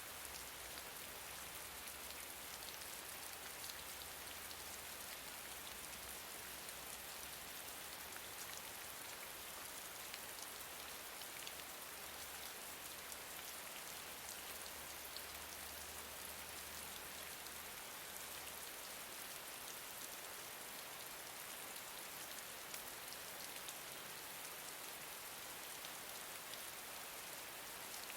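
Steady gentle rain, with many fine individual drops pattering on a surface over a continuous soft hiss.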